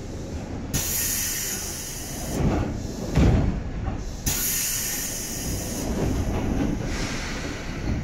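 Seibu 2000 series electric commuter train heard from on board: two bursts of air hiss, each over a second long and about three and a half seconds apart, with a heavy thud between them.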